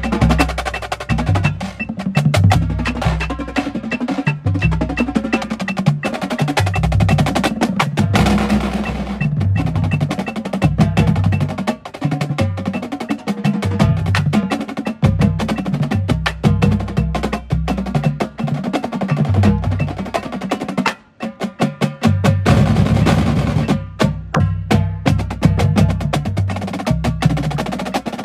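Tabla played in fast rhythmic strokes: sharp ringing taps over deep, pitch-shifting bass strokes, with a brief pause about three quarters of the way through.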